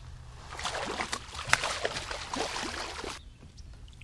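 Water splashing and sloshing beside a kayak as a hooked fish thrashes at the surface, with one sharp splash about one and a half seconds in. The splashing stops abruptly about three seconds in.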